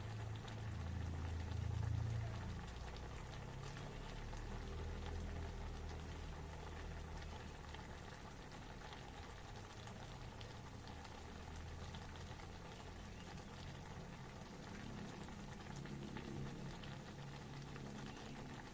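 A pot bubbling steadily at a boil, a continuous fine crackle of bursting bubbles, with a low rumble that swells about two seconds in.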